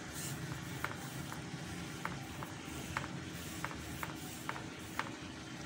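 Flat paintbrush being stroked over a rough wooden plank, with about ten light, irregular ticks over a steady background hiss.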